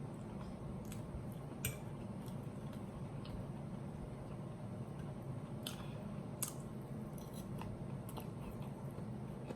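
Close-miked chewing of T-bone steak, with a few sharp clicks scattered through it, the loudest about a second and a half in and again past six seconds.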